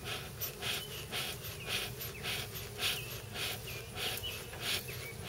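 Beekeeper's smoker bellows squeezed over and over, each squeeze a short puff of air, about two a second. The smoker is being pumped to stoke its fire and get it smoking.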